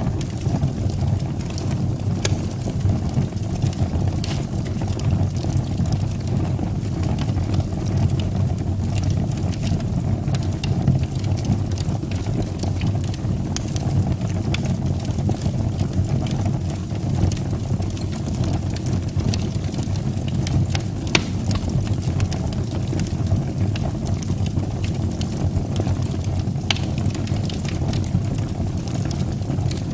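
Fire burning in a fireplace: a steady low rumble of the flames with occasional sharp crackles and pops.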